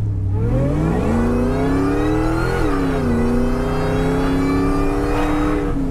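2003 Ford Lightning's supercharged 5.4-litre V8 at full throttle, its pitch rising, dropping at the upshift into second about two and a half seconds in, where the tyres chirp, then rising again before easing off near the end. Heard from inside the cab.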